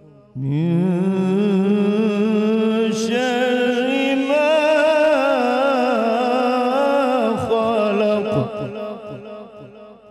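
Quran recitation (tilawat) by a qari: one long melismatic phrase with a wavering vibrato. It starts about half a second in, climbs and then falls in pitch, and fades out over the last couple of seconds.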